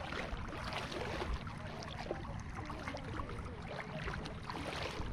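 Water lapping and splashing against the hull of a small boat moving across open water, over a steady low rumble.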